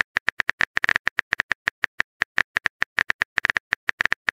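Texting-app keyboard click sound effect tapping in rapid, even succession, about nine or ten short clicks a second, as the typed message is deleted key by key.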